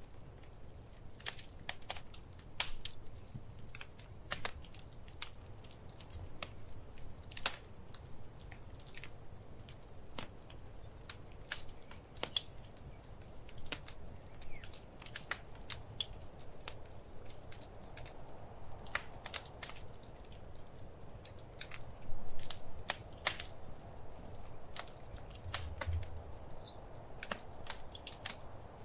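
Wood fire in a fireplace crackling and popping: irregular sharp snaps over a soft low rumble of the flames, with a louder burst of pops near the end.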